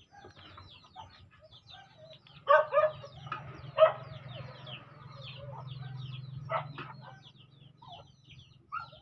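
Domestic chickens clucking, with many short high chirps throughout and a few louder calls, the loudest about three to four seconds in. A low steady hum swells and fades in the middle.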